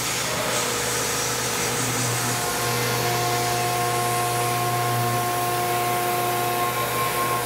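Tormach 1100MX CNC mill with a quarter-inch three-flute end mill cutting metal on a 3D adaptive roughing toolpath. It makes a steady, loud machining noise over a low hum, and several steady tones join in about three seconds in.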